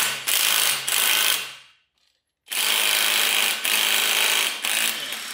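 Cordless mid-torque impact wrench hammering on an LS V8's crank pulley bolt, torqued to 240 ft-lb, to break it loose: two long bursts with a short pause about two seconds in. The wrench struggles a little before the bolt comes off.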